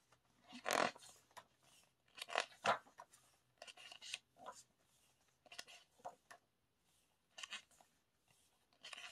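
Paper rustling and crinkling in short, irregular bursts as a K-pop album and its pages are handled and turned.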